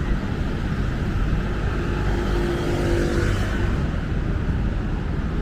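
City street traffic noise: a steady rumble of road vehicles, with one vehicle passing about two seconds in, its engine giving a brief pitched hum.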